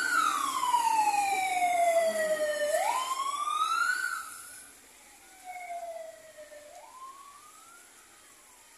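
Ambulance siren wailing in repeated cycles, each a quick climb in pitch followed by a slower fall, about three seconds per cycle. It fades sharply about four seconds in as the ambulance drives off, and fainter wails carry on after that.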